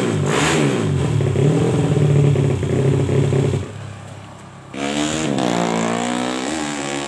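Honda C70 with a swapped 200cc SOHC engine revving, its throttle blipped so the pitch rises and falls again and again. After a short lull about four seconds in, a motorcycle engine revs up and down once more.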